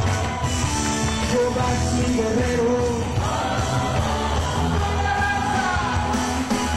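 Live worship music: a band playing with sung melody, the congregation singing along.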